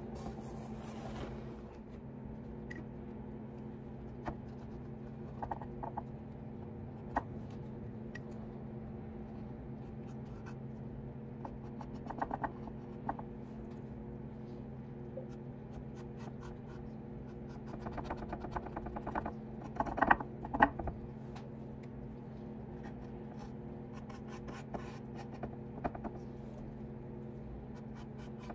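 Light scratching, rubbing and small clicks of handwork on a fiddle's wooden body, over a steady low hum. The clicks come scattered, with a busier, louder cluster about two-thirds of the way through.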